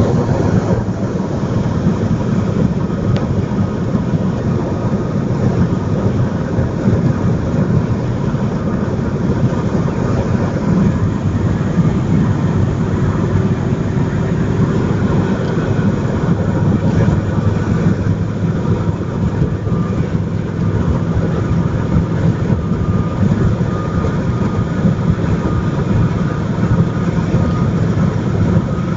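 Steady engine, tyre and wind noise heard inside a car's cabin cruising on a highway at about 125 km/h.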